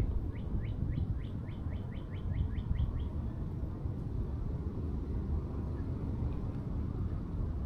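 A songbird sings a fast series of about a dozen short, downward-slurred whistled notes, then stops about three seconds in. A steady low rumble runs underneath.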